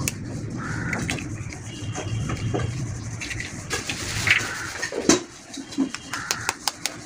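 Eggs cracked open with a knife and emptied into a steel plate: a few light clicks and taps of knife and shell against metal, over a steady low background hum.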